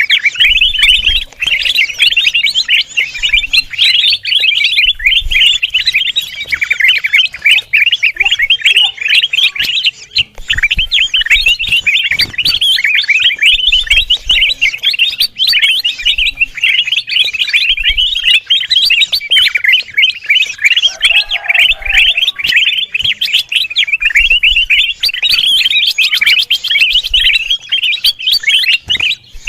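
Kutilang emas (ruby-throated bulbul) calling in a noisy, unbroken chatter of rapid high chirps. This is the busy, excited song that keepers play as a lure and mastering call.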